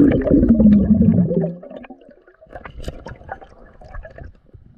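River water heard through a submerged camera microphone: a loud gurgling rush with a falling tone as it goes under, fading after about a second and a half into soft muffled water noise with a few dull knocks.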